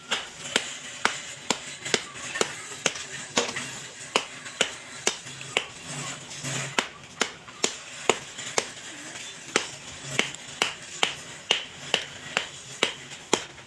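Background music with a sharp clicking beat, about two clicks a second.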